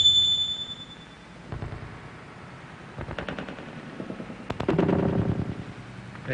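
A high ringing tone fades out in the first second, then two bursts of rapid sharp cracks come about three seconds and four and a half seconds in.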